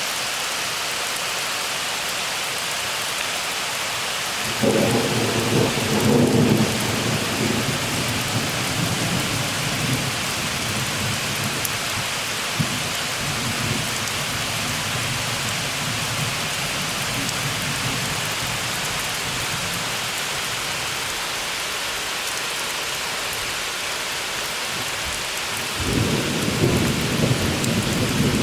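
Steady summer rain falling with thunder. A low rumble breaks in about four and a half seconds in, is loudest for the next two seconds, then rolls on and fades over several seconds; another rumble starts near the end.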